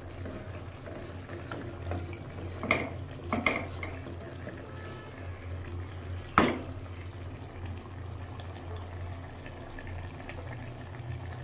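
Masala gravy with chicken leg pieces simmering gently in a nonstick kadai over a low flame, over a steady low hum. A few knocks and clicks against the pan come about a third of the way in, and the sharpest comes a little past the middle.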